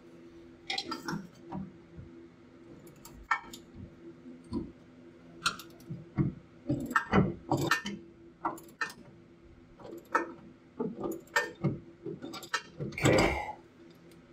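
Irregular metallic clicks and clinks from a wrench running a nut up onto the upper mounting stud of an air spring, snugging it down, over a faint steady hum.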